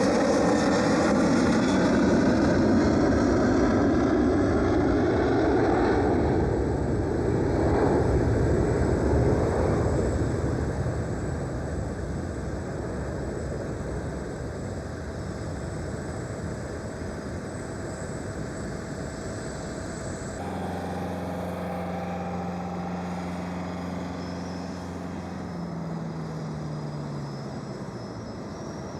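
Large jet aircraft passing close by under engine power, loud at first and fading away over about ten seconds. About twenty seconds in, the sound cuts to a quieter, steady jet engine hum with a few held tones, one of which drops in pitch near the end.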